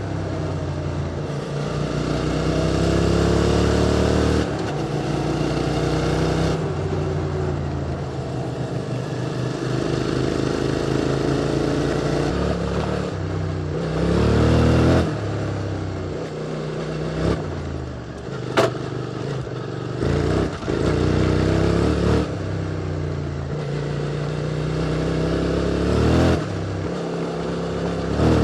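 QJ Motor SVT650X motorcycle engine through an Arrow Racetech slip-on exhaust, accelerating and easing off while riding, its pitch rising and dropping repeatedly through gear changes. A single sharp click comes about two-thirds of the way through.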